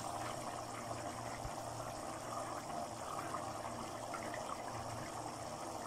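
Black-eyed bean curry bubbling at a steady simmer in an uncovered steel pot, boiling off its water to thicken.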